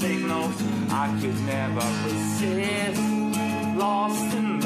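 Steel-string acoustic guitar strummed in sustained chords, with a voice singing a wavering, gliding melody over it.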